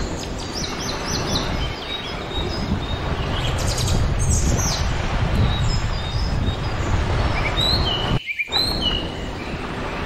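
Small birds chirping in short, high calls over a steady low rush of surf and wind. The whole sound cuts out for a moment about eight seconds in.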